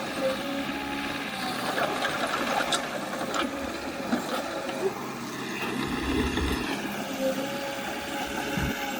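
Diesel engine of heavy earthmoving equipment running steadily, with scattered clanks and clicks over it.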